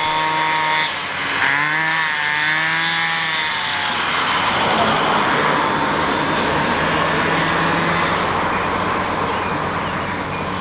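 Two-stroke go-kart engine revving as the kart pulls away, its pitch rising and falling in the first few seconds, then settling into a steady, rougher running sound that eases off slightly near the end.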